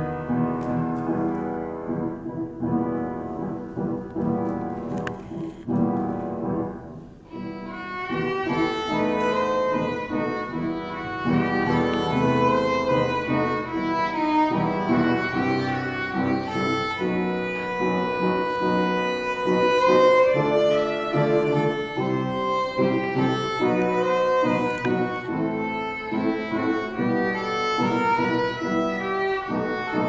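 Violin played with the bow, a slow classical melody. The opening passage sits lower and softer; after a brief dip about seven seconds in, the playing moves into a higher, fuller passage.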